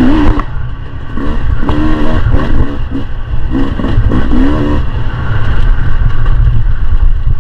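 Beta 300 RR two-stroke dirt bike engine revving up and down, its pitch rising and falling in quick bursts for the first few seconds before settling into a steadier run, with heavy wind rumble on the microphone.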